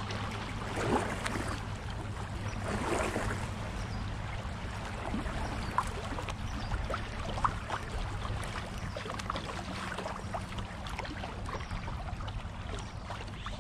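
River current splashing and gurgling around a kayak's hull as it runs through a riffle, with many small splashes over a steady low rumble.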